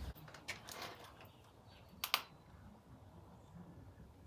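Light clicks and clinks of hand tools being picked up and handled, with two sharp clicks about two seconds in. A low hum cuts off right at the start.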